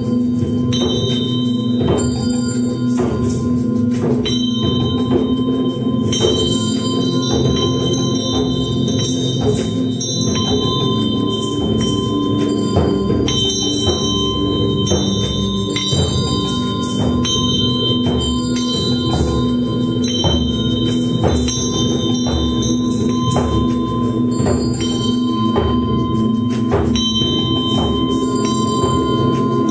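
Sound-concert music: bells and chimes struck again and again, their tones ringing on over a steady low drone.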